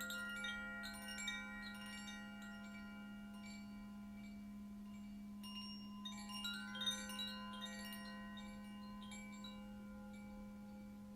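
Chimes played in two flurries, one at the start and another about six seconds in, their many bell-like notes ringing on and overlapping as they fade, over a steady low tone.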